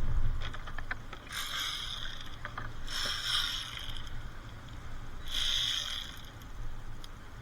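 Hand ratchet wrench clicking in three strokes of about a second each, with a few single clicks just before.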